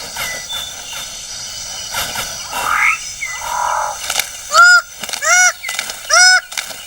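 Rainforest ambience with insect drone, then from about four seconds in a loud series of short animal calls, each rising and falling in pitch, repeated roughly once every second.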